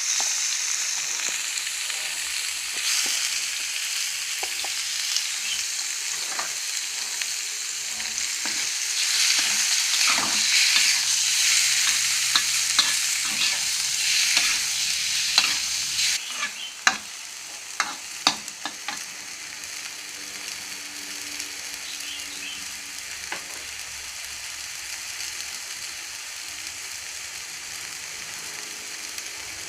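Pork sizzling loudly as it is stir-fried in a hot pan, with the spatula stirring through it. About halfway through the sizzle drops and a quick run of sharp clicks of the utensil on the pan follows, then a quieter, steady sizzle.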